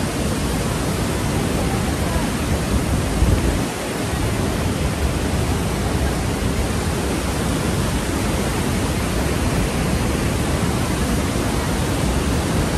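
Bridal Veil Falls at Niagara Falls pouring down close by: a loud, steady, even rush of falling water. A brief low bump about three seconds in.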